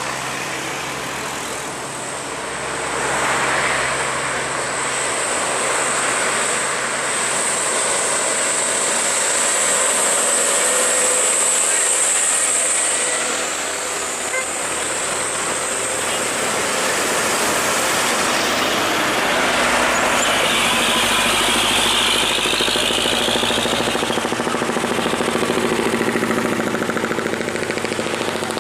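Highway traffic of heavy diesel trucks and motorcycles passing close by: engines running and tyres on the road, a continuous vehicle noise that swells as each truck goes past.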